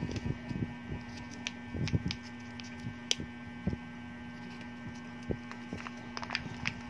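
Small scattered clicks and rustles from a plastic Kinder Joy tray and its foil lid being handled, with a short cluster about two seconds in, over a steady electrical hum.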